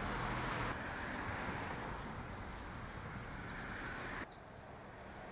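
Steady rushing outdoor background noise, like distant traffic or wind. It shifts abruptly about a second in and drops sharply to a quieter hiss near the end.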